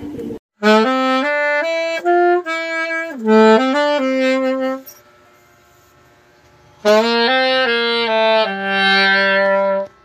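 Music: a solo melody of held notes played in two short phrases, separated by a pause of about two seconds.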